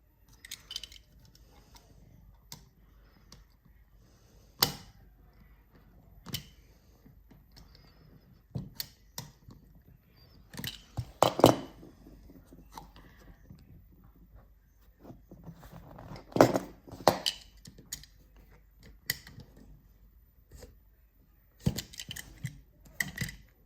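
Small pieces being cut and handled by hand: scattered sharp snips, clicks and knocks with quiet gaps between, the loudest knocks about eleven and sixteen seconds in.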